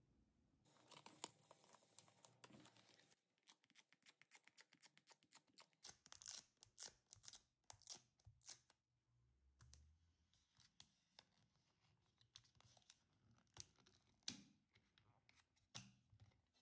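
Quiet hand sounds of preparing an iPhone 13 Pro's glass screen for a screen protector. A stretch of tearing-like rustling comes about a second in, followed by many short rubbing and rustling strokes as a small wipe is worked over the glass. A couple of sharper plastic taps near the end come as a clear installation frame is set down over the phone.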